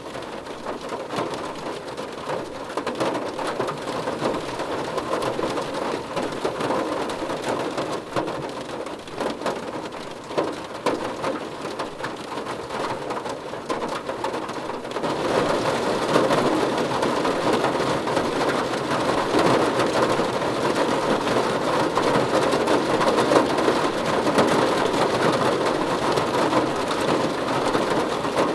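Steady rain falling and pattering on surfaces, becoming heavier and louder about halfway through.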